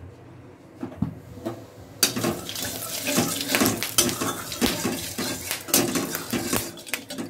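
Hot mustard oil in a kadai sizzling and spattering, starting suddenly about two seconds in as ingredients are dropped in. A metal spoon scrapes and clinks against the pan while stirring.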